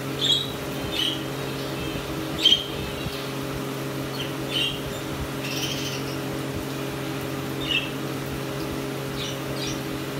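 Lovebirds giving short, sharp high chirps every second or so, the loudest about two and a half seconds in. Under them runs a steady low mechanical hum.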